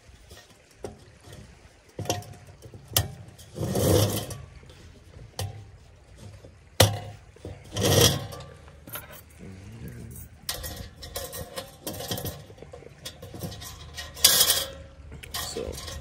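Metal clinks, scrapes and rattles as the wire grille guard and wire handle of a portable propane heater are fitted onto its body: a string of irregular knocks, with louder clanks about four and eight seconds in and near the end.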